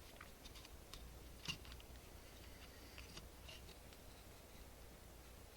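Faint small clicks and taps of hand tools on a circuit board during soldering work, with one sharper click about a second and a half in, over near silence and a low hum.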